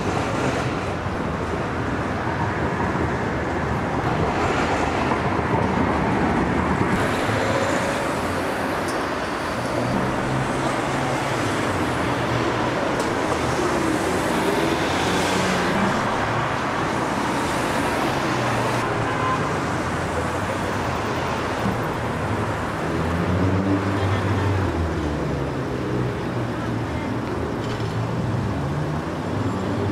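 Road traffic noise: a steady rush of passing vehicles, with engine sounds rising and falling now and then.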